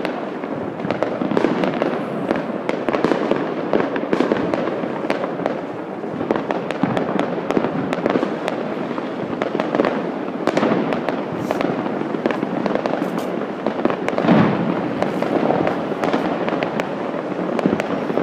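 Many fireworks and firecrackers going off at once in a continuous crackling, banging barrage, with a louder bang about fourteen seconds in.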